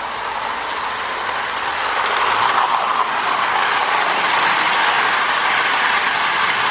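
Marx toy electric train locomotive, a Commodore Vanderbilt fitted with a Marx 333 motor, running steadily along the track: motor and wheels making a continuous whirring rumble that gets louder about two seconds in. It is running smoothly with nothing binding in the motor.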